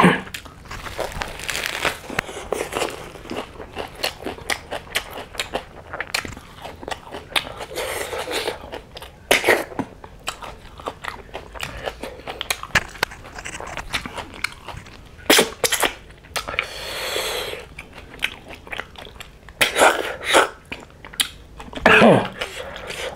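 Close-up eating sounds of snail curry with rice and lettuce: crisp lettuce bitten and chewed, with many short crunches, smacks and clicks of chewing. A short throat sound near the end.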